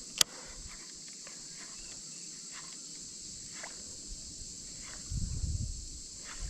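A steady high insect drone in the background, with one sharp click just after the start, a few small scattered knocks, and a low rumble for about a second near the end.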